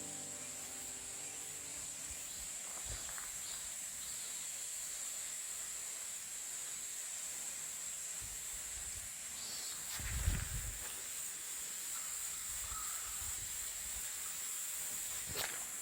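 Insects buzzing outdoors, a steady, even, high-pitched drone, with a dull low bump about ten seconds in and a faint click near the end.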